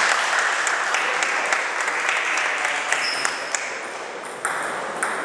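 Table tennis balls clicking off bats and tables at several tables at once, scattered irregular ticks over a steady wash of hall noise and distant voices that slowly fades.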